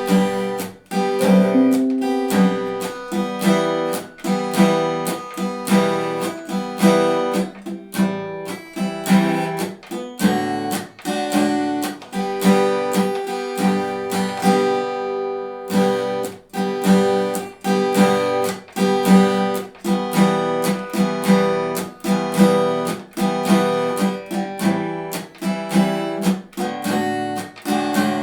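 Guitar strumming chords in a steady rhythm, with a brief pause about halfway through.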